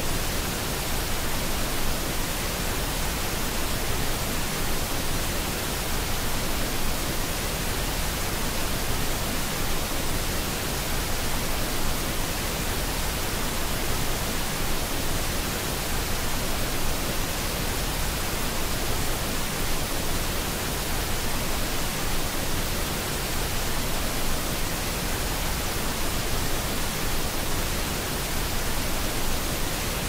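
Steady, even rush of a large waterfall's falling water, unchanging throughout.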